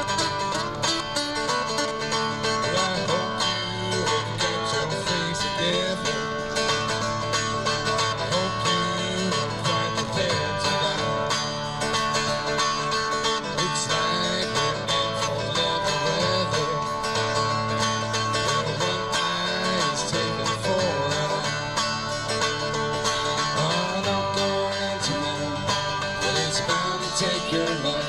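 Street buskers playing a song on guitars, the music running on without a break.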